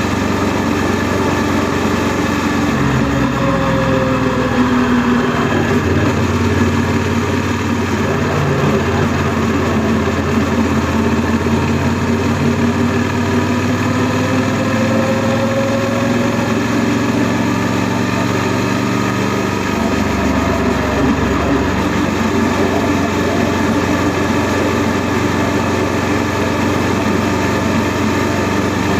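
Honda NC700S motorcycle's 670 cc parallel-twin engine running while riding. Its pitch drops a few seconds in and rises again around twelve to sixteen seconds in, as the revs fall and build.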